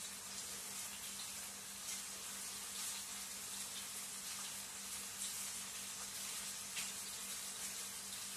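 Faint steady hiss with a low steady hum, the kitchen's background noise. A few soft light ticks come through while kosher salt is poured out for measuring.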